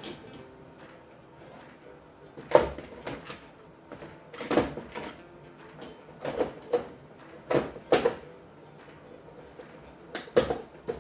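Irregular knocks and clacks of plastic and metal parts being handled and fitted, as a dishwasher door panel and its covers are put back together. About nine separate knocks come at uneven intervals, two of them in quick pairs.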